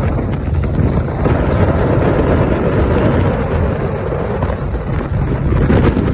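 Heavy wind buffeting the microphone aboard a panga running through choppy water, over a continuous rush of water along the hull.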